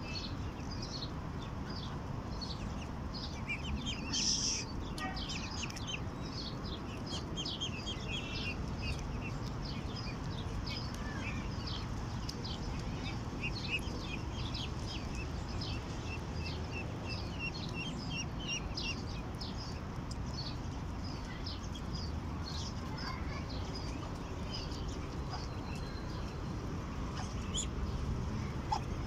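A brood of Muscovy ducklings peeping: many short, high-pitched peeps overlapping, most dense through the first two-thirds and thinning toward the end, over a steady low background rumble.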